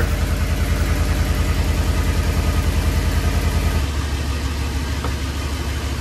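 2014 Ford E350's 5.4-litre V8 running at a raised speed, then settling down to idle about four seconds in; the cylinder 7 misfire is cleared now that its chewed injector wire is repaired. It runs with an exhaust leak, which the mechanic takes for a cracked exhaust manifold or broken manifold bolts.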